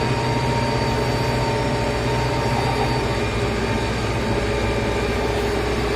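Tractor diesel engine running steadily under heavy load while pulling a plough through the soil, with a constant low hum and a few steady whining tones.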